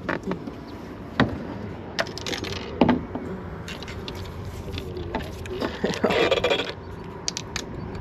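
Knocks and scrapes of gear being handled on a small fishing boat: a sharp knock about a second in, another just under three seconds in, and a short scraping rush around six seconds in.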